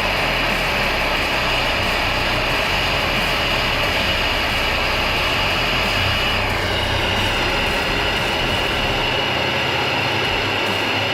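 Steady, loud rushing of a heating tool heating cable lugs packed with filler, with a tone in it that drops in pitch about six and a half seconds in.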